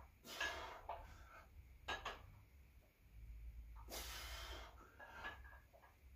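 A man breathing hard through the effort of dumbbell curls: short forceful breaths about half a second in and at two seconds, and a longer one around four seconds.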